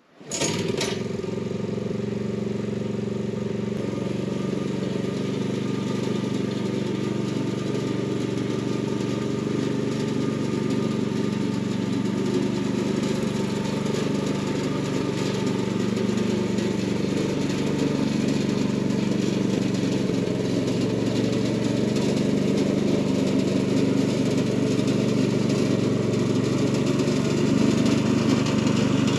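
Yardmax rear-tine tiller's small gasoline engine catching just after the start and then running steadily at an even speed, growing slightly louder near the end.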